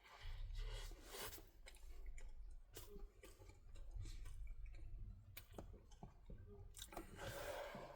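A person chewing food close to the microphone, with scattered soft mouth clicks and smacks.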